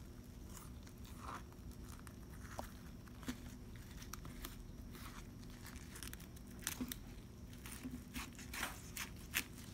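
Fillet knife cutting a fillet off a bluegill: faint crunching and crackling clicks as the blade works through the skin, scales and small bones, coming more often toward the end.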